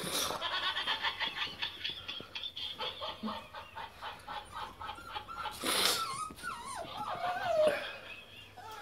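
Puppies play-fighting, giving rapid high-pitched squeals and yips, with a loud sudden yelp a little before six seconds in and a wavering whine that falls in pitch after it.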